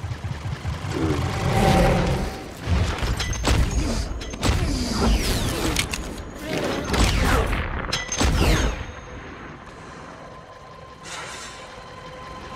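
Film sound design for a slowed-down adrenaline rush: rapid heartbeat-like pulses at the start give way to deep booms, sharp hits and falling whooshing sweeps, about a handful of heavy hits in the first nine seconds. After that it settles into a quieter steady hum.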